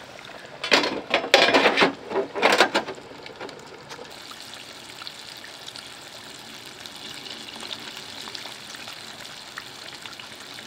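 Hot oil in a deep fryer bubbling and crackling loudly for the first few seconds as a battered whole flounder goes in. It then settles into a steady sizzle as the fish fries.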